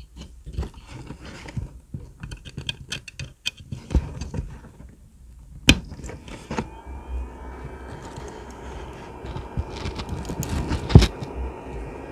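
Handling clicks and a sharp click as a USB-C power cable is plugged into a Raspberry Pi 4. About halfway through, the small cooling fan on its heat-pipe tower cooler starts and runs with a steady whir and a faint whine, close to the microphone. A loud knock comes near the end.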